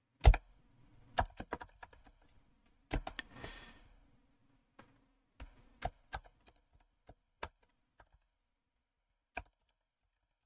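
Computer keyboard keys being pressed: scattered single clicks and taps at an uneven pace, with one sharp, loud key strike about a quarter of a second in.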